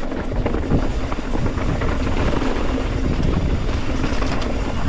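Wind buffeting the microphone of a mountain biker descending a rocky trail, with the tyres and bike clattering over rock.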